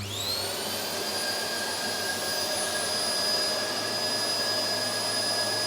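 Hoover Globe upright vacuum cleaner switched on: the motor spins up with a rising whine in the first half second, then runs steadily with a high whine.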